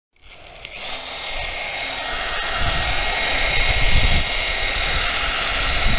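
Electric orbital sander running with a steady high whine while its pad sands a truck door panel.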